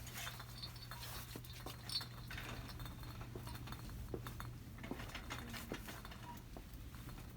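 Shop ambience: a steady low hum under scattered light clicks and clinks of goods being handled, with one sharper knock about two seconds in.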